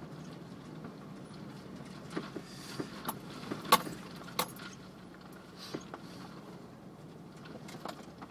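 Off-road vehicle's engine running steadily at crawling speed, heard from inside the cab, with sharp clicks and rattles in the cab as it rocks over the rough trail. The clicks bunch up about two to four seconds in, the loudest near four seconds, and a few more come later.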